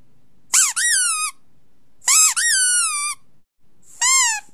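High-pitched squeaks, three in a row, each rising and then falling in pitch, the first two in two parts.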